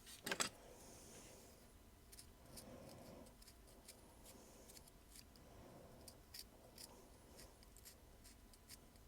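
Small plastic parts being handled at a workbench: a sharp double click about a third of a second in, then scattered faint ticks and taps over low room tone.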